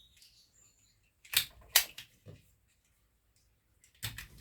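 Two sharp clicks about half a second apart, then another clatter near the end: small parts and tools being picked up and set down on a workbench.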